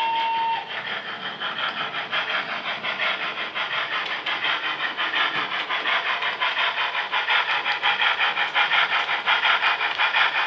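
Model B1 steam locomotive's sound decoder: the whistle finishes a short blast right at the start, then rhythmic steam chuffs, growing louder toward the end as the engine draws its coaches past.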